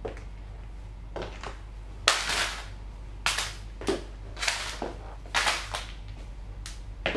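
Cowboy boots stepping on packets of Ritz crackers: about half a dozen sharp crunches of crackers breaking and wrappers crinkling, the loudest and longest about two seconds in.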